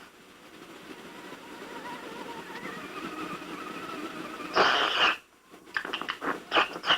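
A performer voicing a poisoning. About four and a half seconds in there is one loud, breathy gasp. After a moment's silence comes a rapid string of short choking, sputtering noises.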